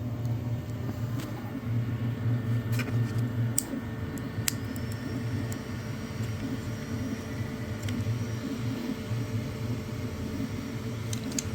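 Steady low machine hum, with scattered sharp clicks of hard plastic as a freshly 3D-printed print-in-place adjustable spanner is worked by hand and its support pieces are pried at.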